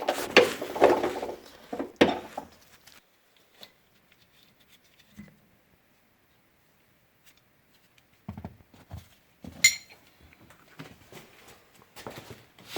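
Metal tools and parts clinking and knocking during hand work on a car's rear axle, with a quiet pause in the middle and one sharp ringing clink near the end.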